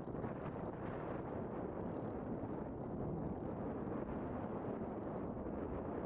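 North American P-51 Mustang's V-12 engine running steadily at taxi power as the fighter rolls along the runway.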